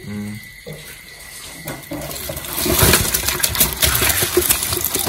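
Live giant freshwater prawns clattering and splashing in water in a basin, a dense rattle of hard shells that starts about two and a half seconds in.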